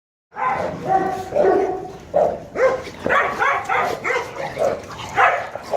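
Dogs barking and yipping in a quick run of short calls, about two a second.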